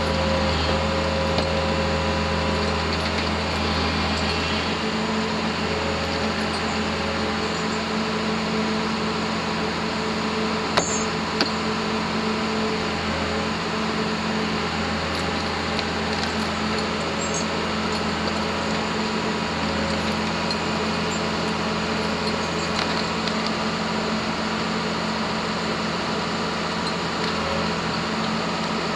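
Heavy diesel engine running steadily under load as the delimber drives onto the lowboy trailer. Two short knocks come about eleven seconds in, half a second apart.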